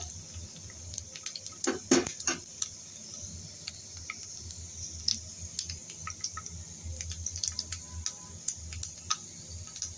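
Cashews, almonds and whole spices frying in hot desi ghee in a small pan: a steady sizzle with scattered pops and crackles. A few louder spoon strokes come about two seconds in.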